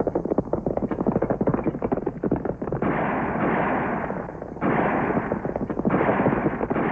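Western-movie gunfire: a rapid clatter of shots for about three seconds, then three longer, louder noisy blasts, one starting abruptly a little past halfway.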